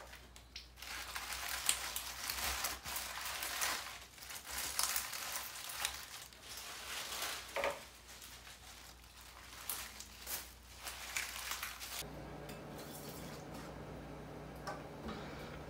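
Water running from a kitchen tap over leafy greens being rinsed in a steel sink, with leaves rustling and small clinks. The water stops about twelve seconds in, leaving a steady low hum and a few light knocks.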